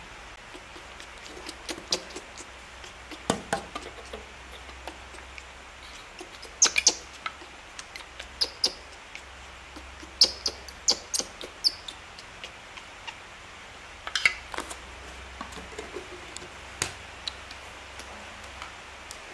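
Newborn baby monkey whimpering for milk in short, high-pitched squeaks that come in scattered clusters, mixed with a few sharp clicks.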